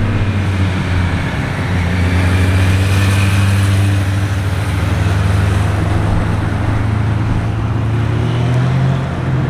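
Motorcycle engines passing close by, a loud steady drone that rises a little in pitch near the end.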